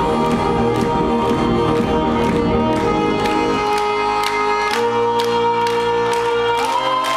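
Live band music: violin, bass guitar and keyboard playing sustained chords over a steady beat. The bass thins out about halfway through. Crowd whoops start to rise at the very end.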